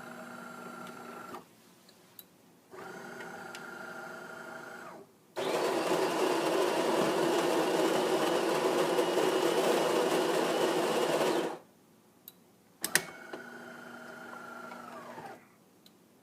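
DeLonghi Magnifica ESAM3300 super-automatic espresso machine starting a brew: a motor whirs in three short runs of about two seconds each, its pitch dropping as each one stops, and between the second and third the built-in grinder grinds beans, louder and noisier, for about six seconds.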